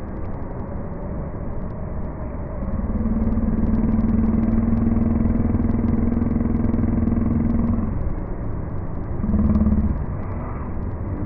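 Steady rushing roar of the Rain Vortex indoor waterfall, with the electric hum of a Changi Airport Skytrain car crossing the bridge. The hum rises about three seconds in, stops near eight seconds, and returns briefly near the end.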